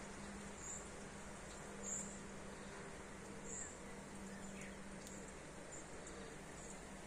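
Steady rain hiss, with a few short high chirps every second or so and a low steady hum underneath.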